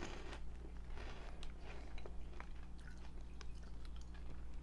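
Faint, irregular crunching and chewing of Cheetos White Cheddar Bites, small crunchy round cheese snacks.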